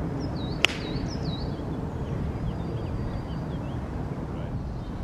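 A golf club strikes the ball on a tee shot: one sharp crack just over half a second in. Birds sing with wavy whistled chirps around it, over a steady low outdoor background noise.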